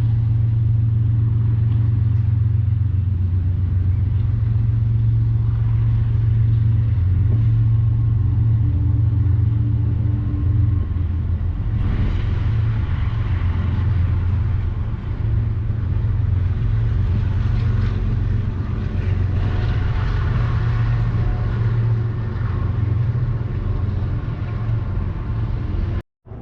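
A train running past close by: a steady deep rumble, with more rattle and clatter added from about twelve seconds in. It cuts off abruptly just before the end.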